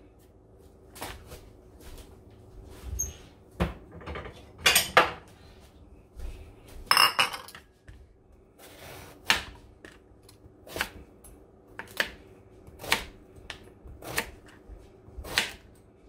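Kitchen knife slicing an eggplant into rounds on a plastic cutting board: each cut ends in a short sharp tap on the board, coming about once a second in the second half, after a few louder knocks and clatters in the first half.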